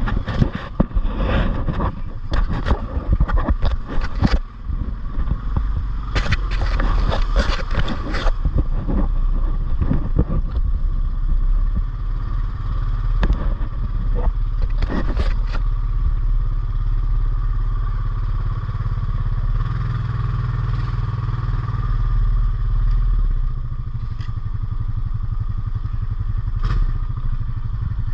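ATV engine running as the quad is ridden over rough ground. Repeated knocks and clatter come through in the first eight seconds and again around the middle, and the engine note rises for a few seconds past the halfway point.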